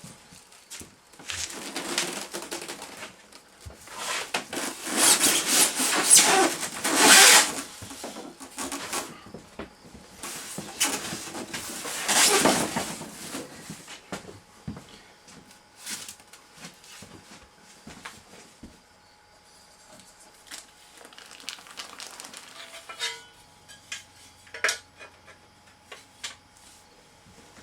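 Packing material rustling and machine parts clattering as a new Jet 10-inch planer/jointer is unpacked by hand. The loudest rustling comes in bursts about five to seven seconds in and again around twelve seconds, followed by scattered clicks and knocks of parts being set down.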